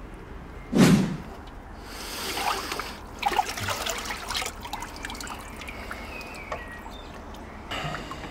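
A sudden loud thump about a second in, then water splashing and sloshing as a clear plastic box is scooped through a tub of water and lifted out, followed by water trickling and dripping from the box.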